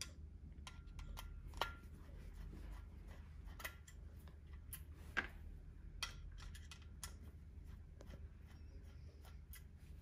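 Faint, scattered small metallic clicks and ticks of a Pozidriv screwdriver undoing the two screws that hold the electrodes on an oil burner's ignition assembly, over a low steady hum.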